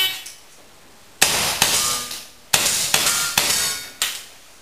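Handgun fired in a fast string of about seven shots at iron plates: two shots about a second in, then five more in quick succession. Each shot has a ringing tail and echoes in the hall.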